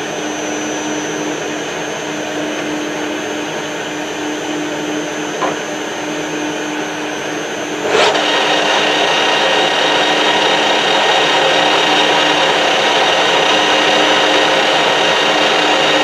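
Metal lathe's drive running steadily. About halfway through, a sharp click as the spindle is engaged, and the chuck spins up: the sound gets louder and brighter, with a steady whine over it.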